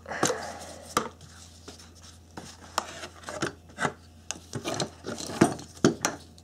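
Hard plastic radiator fan shroud and fan being worked off their electric motor by hand: irregular clicks, knocks and rubbing, with the sharpest knocks about five and a half and six seconds in.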